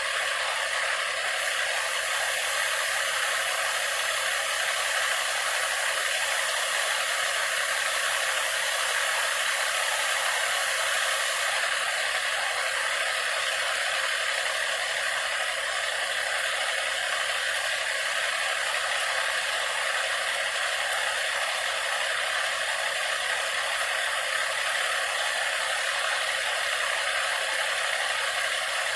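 Steady, unbroken mechanical rattling noise at an even level.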